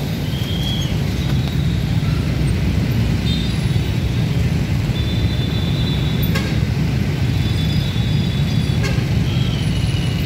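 Steady low rumble of road traffic at a railway level crossing, with a few brief high-pitched toots and two faint clicks.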